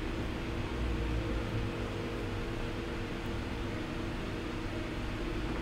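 Steady low hum and hiss of kitchen background noise, even throughout, with no distinct sizzle or clatter standing out while beaten egg sets over long beans in a frying pan.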